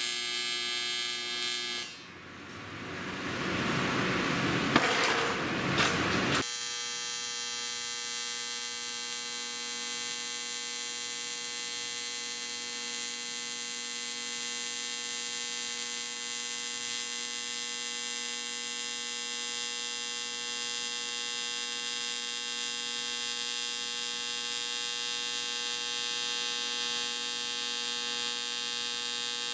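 AC TIG welding arc on aluminum, buzzing steadily. About two seconds in the buzz gives way to a few seconds of hissing with a couple of sharp pops, then a steady buzz of a different pitch returns about six seconds in.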